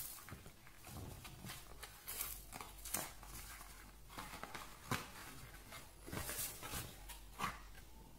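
Cardboard mailer envelope being opened by hand: a series of short rustles and tears of cardboard with a few sharp clicks, faint.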